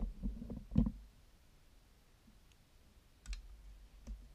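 Light clicks and knocks of hard 3D-printed plastic doll parts being handled: a quick cluster in the first second, then a couple of sharper single clicks near the end.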